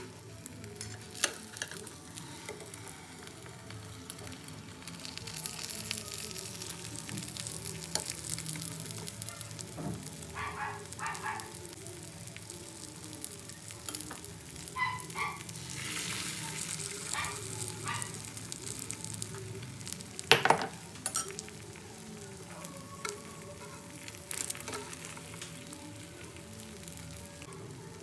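Beaten egg sizzling in a nonstick frying pan as an omelette is rolled, the sizzle growing stronger about five seconds in. A metal spatula clicks and knocks against the pan now and then, loudest once about twenty seconds in.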